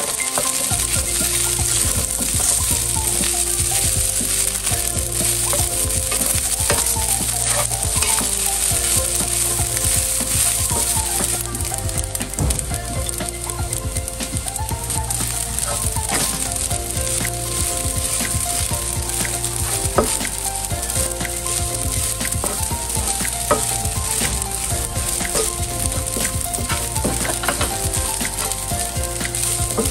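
Rice sizzling in a hot nonstick frying pan as it is stirred and tossed with a wooden spatula, with scattered scrapes and clicks of the spatula against the pan. Soft background music with steady bass notes plays underneath.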